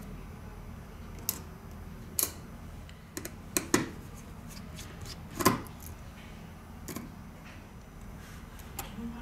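Scattered sharp clicks and taps of small hand tools on a phone, about six spread over several seconds with the loudest about halfway through, over a low steady hum.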